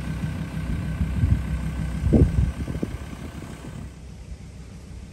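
Mazda BT-50 4x4 ute running, a low engine and road rumble with a couple of heavy knocks about two seconds in. The rumble fades about four seconds in, leaving wind on the microphone.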